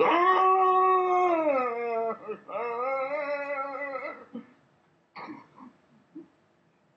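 Two long, drawn-out howling notes: the first held steady and then dropping in pitch about two seconds in, the second lower and slightly wavering, followed by a few faint short sounds.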